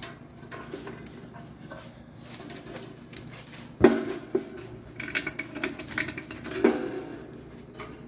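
Metal clinking and rattling as a Kenmore dryer's heating element is worked back into its sheet-metal housing. One sharp knock comes about four seconds in, and a run of quick clicks and clanks follows a second later.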